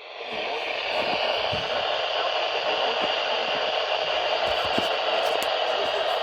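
Steady hiss of static from a radio receiver with no clear signal coming through. It comes up in the first half second and then holds steady.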